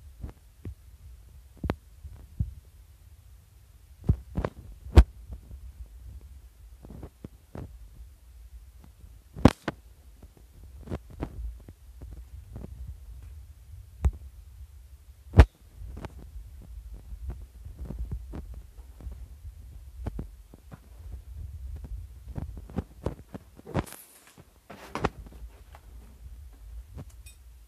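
Handling noise from a handheld camera carried through a debris-strewn room: a steady low rumble with irregular sharp clicks and knocks. A brief rustling crunch comes near the end.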